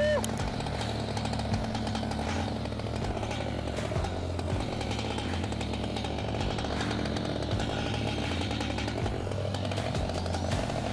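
Large gasoline chainsaw running and cutting wood, its engine note rising and falling as it works through the cut.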